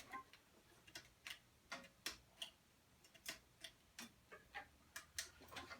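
Near silence with faint, irregular light clicks, a few to the second.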